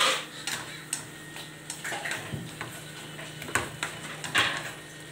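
Chopsticks knocking and scraping against a wok while termite mushrooms are stir-fried, in about half a dozen sharp, irregular clacks over a low steady hum.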